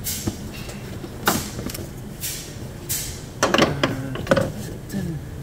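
A foam interlocking mat being slid and laid over the front of the engine bay: several brief scraping swishes, then a cluster of knocks and clatter about three and a half seconds in.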